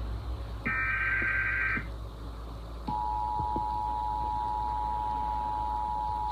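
Emergency Alert System tones: a last burst of the SAME header's warbling digital data, about a second long. After a short gap, the EAS two-tone attention signal starts and holds steady, the alarm that announces an alert message to follow. A low hum runs underneath.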